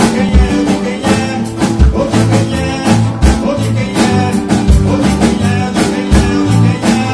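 Live band playing: a man sings lead over acoustic and electric guitars, a drum kit keeping a steady beat, and keyboard.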